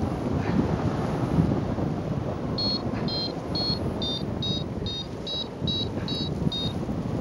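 Wind rushing over the microphone in flight, with a paragliding variometer beeping about ten times in quick succession from a few seconds in, a high tone whose pitch drops slightly over the series: the vario's climb tone, signalling rising air.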